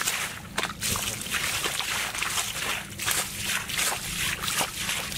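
Irregular splashing and sloshing in shallow muddy water, a few splashes a second, as bare feet wade through it.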